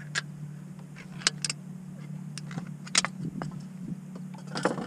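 A few light clicks and taps from handling an opened tin of fish and its peeled-back lid, over a steady low hum.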